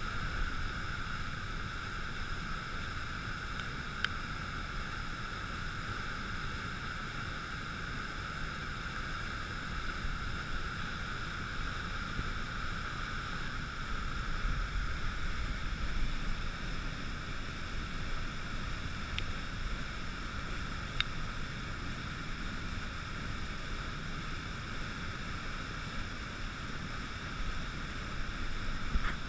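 Flood-swollen river pouring over a weir and churning below it: a steady rushing of water, the river in spate after days of rain.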